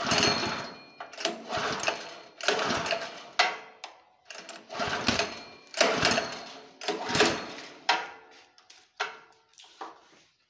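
Recoil pull-starter of the Mitsunini HT103 tiller's 7 hp single-cylinder four-stroke petrol engine, pulled about six times in a row about a second apart, each pull a short whirring rattle as the engine cranks. The engine does not catch.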